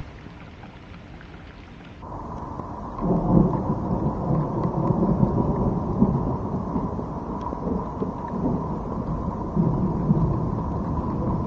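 Thunder rumbling over rain. It starts about three seconds in after a quieter stretch and swells again near the end.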